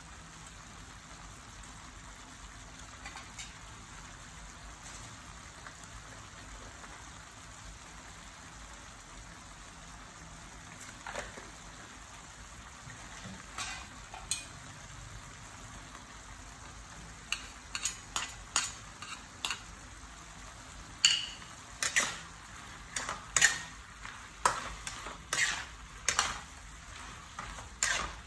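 Beef and vegetables frying in a metal wok with a low, steady sizzle. From about two-thirds of the way through, a metal spatula strikes and scrapes the wok again and again as the stir-fry is tossed.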